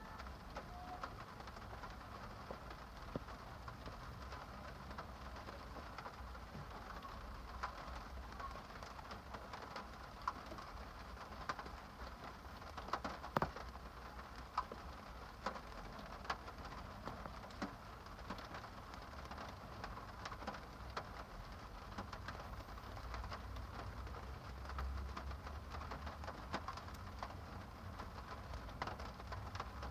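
Steady rain falling, an even patter with many individual drops ticking on a surface and one sharper drop about 13 seconds in.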